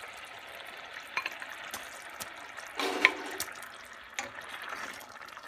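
Thick coconut prawn curry bubbling at a boil in a steel pan, a steady low hiss with a few small clicks. About three seconds in, raw prawns are tipped in from a bowl with a short wet splash and a sharp click.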